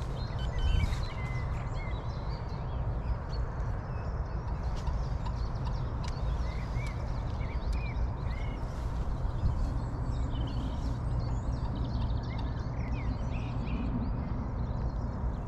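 Songbirds chirping and trilling over a steady low rumble.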